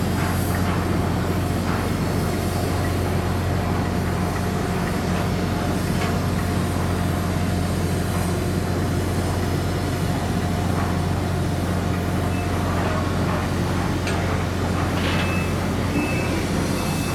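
A cargo ship's diesel engine running steadily under way, a constant low hum with an even rushing noise of wind and water over it.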